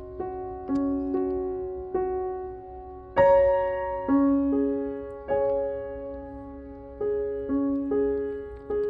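Soft background piano music: a slow, gentle melody of single notes, each struck and left to fade, with a louder phrase starting about three seconds in.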